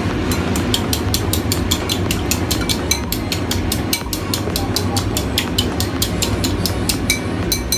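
Chopsticks beating eggs in a bowl, clicking against its rim in a quick, even rhythm of about five or six clicks a second, over a steady low hum.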